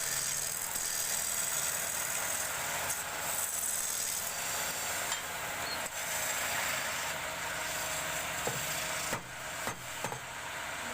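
A hand tool cutting and scraping wood turning on a lathe, a steady rasping noise. About nine seconds in it drops and a few short knocks follow.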